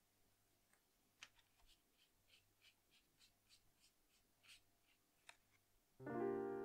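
Faint, short scratchy strokes of a paintbrush working gouache in a plastic palette and onto paper, about three strokes a second. Piano music comes in loudly near the end.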